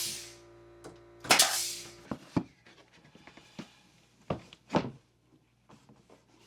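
Pneumatic trim nail gun firing into wooden trim: one shot at the start and another just over a second in, each followed by a short hiss of exhaust air. Several lighter wooden knocks and taps follow.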